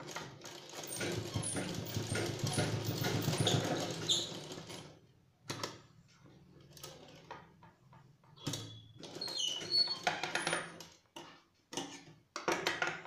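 Domestic straight-stitch sewing machine running for about five seconds as it sews a back-and-forth locking stitch at the end of a seam. It then stops, and the fabric is pulled out and handled, with scattered short rustles and knocks.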